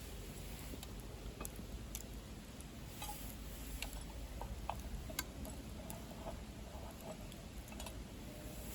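Wood fire crackling in a secondary-combustion camp stove: irregular sharp pops and ticks, a few louder ones around the middle, over a steady low rumble of burning.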